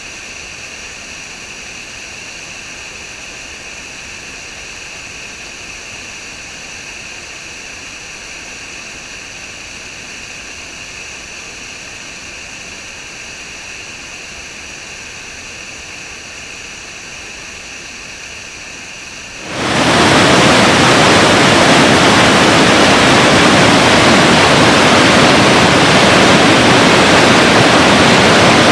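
Waterfall: steady rushing water that abruptly becomes much louder and fuller about two-thirds of the way in.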